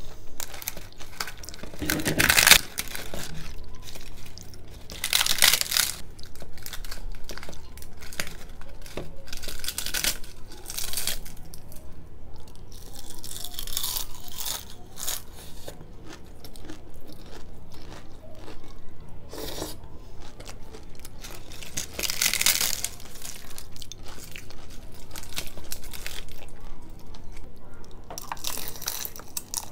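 Close-miked eating of hard-fried puri with curry and chickpeas: wet chewing with loud crunches from the crisp puri every few seconds, the loudest about two seconds in.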